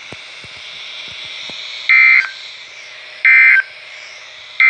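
NOAA Weather Radio SAME end-of-message data bursts: three short, shrill digital warbles just over a second apart over steady receiver hiss, the third starting near the end. They signal the end of the broadcast alert message.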